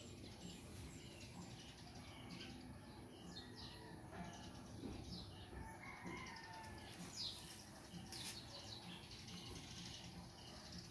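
Faint birdsong: scattered short high chirps and whistles, with a steady high hiss underneath.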